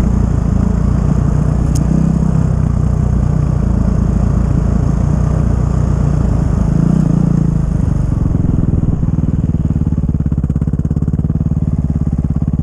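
Snowbike engine (a dirt bike fitted with a ski-and-track kit) running, its pitch shifting a little, then from about nine seconds in settling into a steady, even throb.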